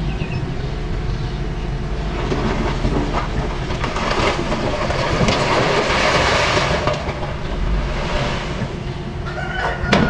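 Small crawler bulldozer's diesel engine running steadily, with its steel tracks clanking as it pushes soil; the noise swells for a few seconds in the middle of the push, then settles.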